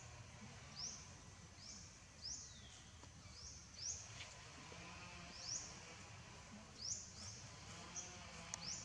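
A bird calling over and over in short, high chirps that slide down in pitch, often in quick pairs, about once a second, over a faint steady insect whine.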